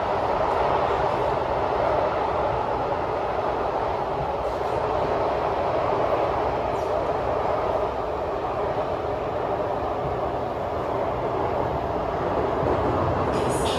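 Kawasaki C751B metro train running at speed, heard from inside the carriage: a steady rumble of wheels and running gear. A few sharp ticks come in near the end.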